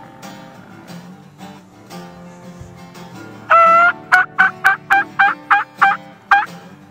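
Hunter's turkey call: about halfway in, one loud held note, then a quick run of about nine short, sharp yelps, each dropping in pitch. Faint guitar music plays under it.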